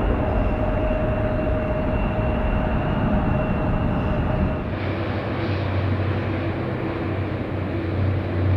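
Jet airliner engines running steadily: a steady whine over rushing noise from an ANA Boeing 767-300ER. About halfway through, the sound cuts to a JAL Boeing 787-8's engines, a lower, steady hum under the rushing noise.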